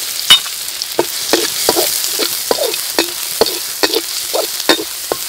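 Minced garlic sizzling in hot oil in a wok, with a metal ladle scraping and clinking against the wok about two or three times a second as it is stirred.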